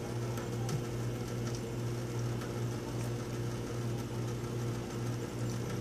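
Steady low electrical hum from a running appliance, with a thin stream of tap water running from the faucet into a stainless steel sink.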